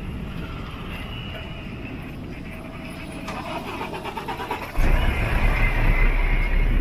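Road traffic passing on the street: steady noise of cars, with a loud low rumble that sets in suddenly near the end.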